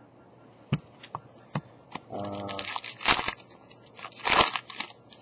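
Foil wrapper of a hockey card pack crinkling and tearing, in two loud rustling bursts about three and four and a half seconds in, after a few light clicks of card handling.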